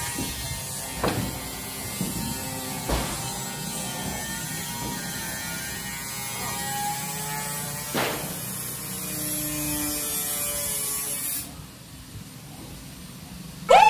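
Footsteps in sandals on a corrugated metal roof, a few single knocks, over a steady rushing noise that drops away about two seconds before the end. Loud electronic music starts right at the end.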